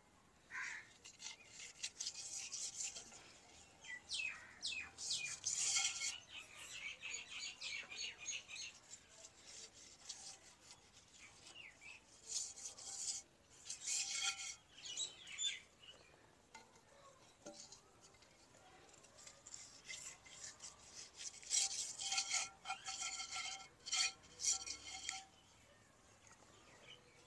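Hand rubbing and smearing wet mud over the outside of a metal cooking pot in irregular scraping strokes, coating it so the soot from the wood fire will come off easily.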